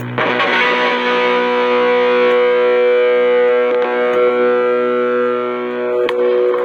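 Electric guitar played through a pedalboard with its overdrive switched on: a distorted chord is struck just after the start and left to ring out for about six seconds. It is heard through a phone microphone.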